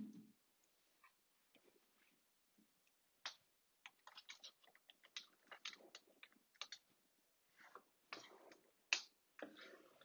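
Near silence, broken by scattered faint clicks and soft noises from about three seconds in.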